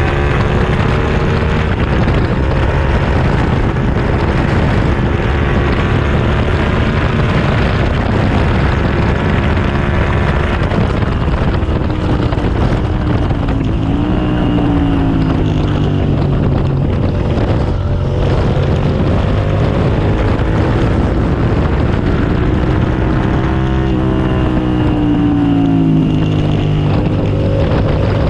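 2007 Suzuki SV650S's V-twin engine running hard at speed. The revs drop twice, about 12 and 22 seconds in, and climb again each time, with wind rushing over the microphone.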